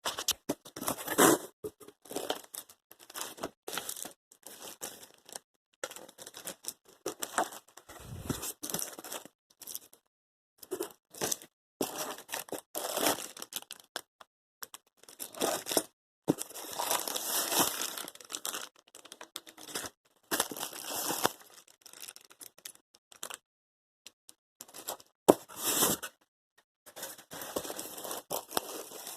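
Cardboard box and packing material being handled and pulled apart while a ceiling fan is unpacked: irregular bursts of tearing, scraping and crinkling, with a few sharp knocks.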